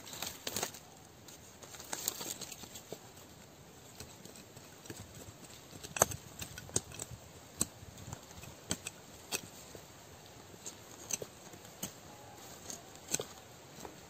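Fingers digging and scraping in loose soil and dry leaf litter around a sapling's roots, with irregular crunches and crackles. A sharp click about six seconds in is the loudest.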